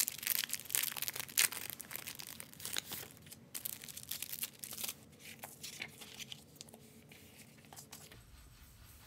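Thin clear plastic packaging crinkling and tearing as it is opened by hand, with dense crackling for the first few seconds. The crackles and rustles then thin out as the paper sheets are handled.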